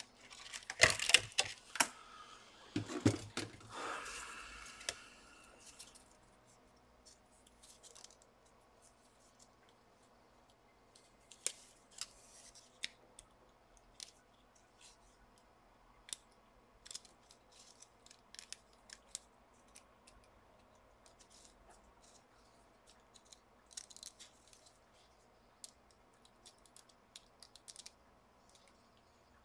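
Gloved hands handling plastic laptop parts: a burst of clattering and scraping in the first few seconds, then sparse small clicks and rustles as a small circuit board and its ribbon cable are fitted.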